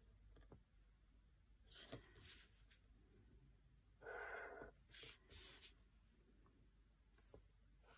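Near silence, with a few faint rustles and scrapes as a plastic ruler is slid across paper and a pen is set to it.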